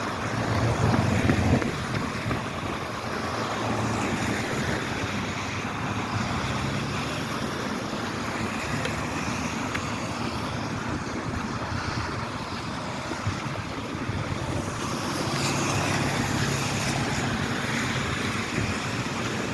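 Vehicle noise on a rain-wet road: a steady hiss of tyres on wet pavement under a low engine hum, swelling about a second in and again near the end.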